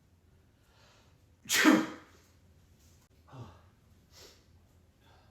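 A man's loud fake sneeze, a single sharp "achoo" about a second and a half in, done as a prank. Two short, much quieter breathy sounds follow.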